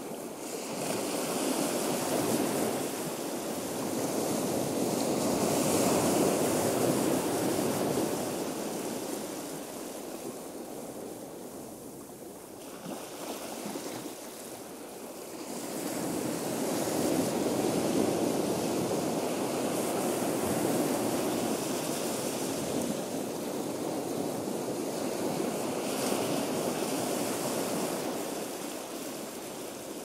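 Ocean surf washing in and out: a steady wash of noise that swells and ebbs slowly, two long swells with a lull between them.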